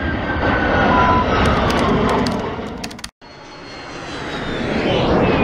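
Jet fighter flying past: a loud roar with a whistle that falls in pitch as it passes. It cuts off suddenly about three seconds in, and a second jet pass swells up with another falling whistle.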